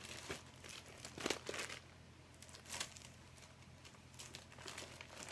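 Faint, irregular crinkling and rustling of plastic packaging being handled, in several short spells.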